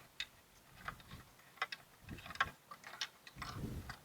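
Irregular light clicks and taps of parts and tools being handled, with a few dull low knocks, the biggest about three and a half seconds in.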